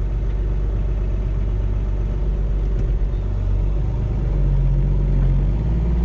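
Deutz-Fahr Agrotron M610 tractor's six-cylinder diesel engine running steadily, pulling a plough, heard from inside the cab. Its note shifts slightly about four and a half seconds in.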